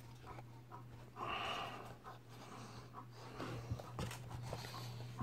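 Quiet handling of a chainsaw chain and the vise of a bench chain grinder, with a few small clicks about three and a half to four seconds in. A breathy snort through the nose about a second in is the loudest sound, over a steady low hum.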